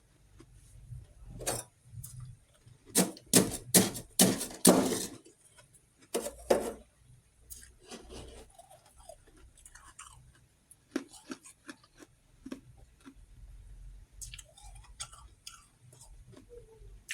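Close-miked biting and chewing of refrozen freezer frost chunks: sharp icy crunches, loudest in a run of bites a few seconds in, then quieter chewing clicks.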